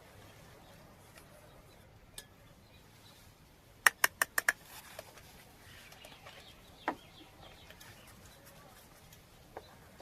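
Miniature toy kitchen pieces being handled, clicking and clinking against each other: a quick run of about six sharp clicks about four seconds in, then a single click near seven seconds, with a few fainter taps around them.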